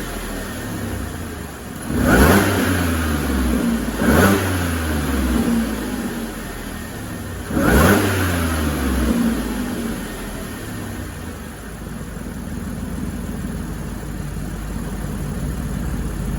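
Audi Q5's supercharged 3.0 TFSI V6 revved three times, about 2, 4 and 8 seconds in, each rev rising quickly and then settling back to idle. The stock intake and airbox are still fitted, so the supercharger is hard to hear.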